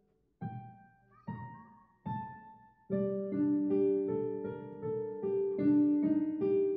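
Solo piano playing a slow, gentle melody: three single notes about a second apart, then fuller, held notes overlapping from about three seconds in.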